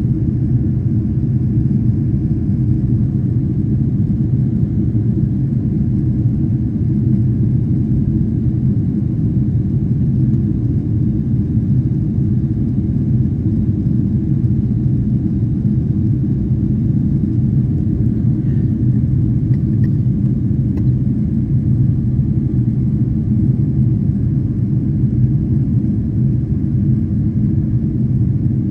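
Steady low rumble of jet airliner cabin noise in cruise flight: engine and airflow noise heard inside the cabin.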